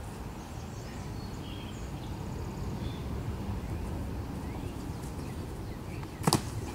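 Steady low outdoor rumble with a few faint high chirps, then one sharp thud about six seconds in as a person's body hits a concrete ledge while rolling over it.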